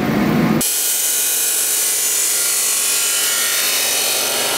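After a brief low rumble, a power grinder's abrasive wheel runs steadily against steel, throwing sparks.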